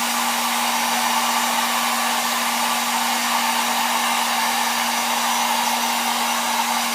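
Hair dryer blowing steadily, with an even rush of air and a constant motor hum, used on high to warm a phone screen and melt the glue under the glass.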